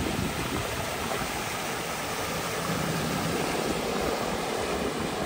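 A vehicle wading through floodwater, its engine running under a steady rush of water.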